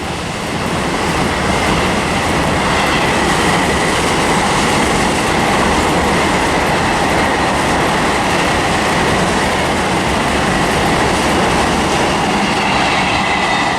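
Freight train's wagons running past on the rails: a loud, steady rail noise with a thin, high ringing tone held above it.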